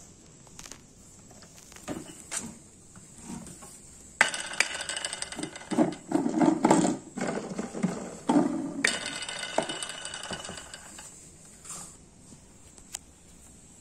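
Handling clicks and knocks, then a Sharp EC-8305 low-wattage vacuum cleaner runs with a high motor whine and rattling from about four seconds in, stopping at about eleven seconds.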